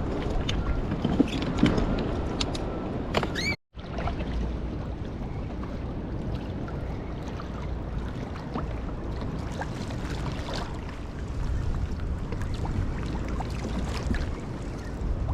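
Choppy sea water sloshing and slapping against a fishing kayak's hull, with wind buffeting the microphone. The sound cuts out for an instant about three and a half seconds in.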